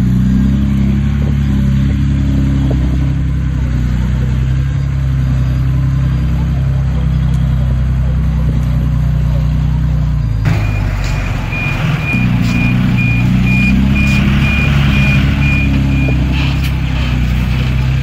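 Heavy earthmoving-site diesel engine running steadily under load. About ten seconds in the sound changes abruptly, and a reversing alarm beeps evenly for about five seconds over the engine, with a few clanks.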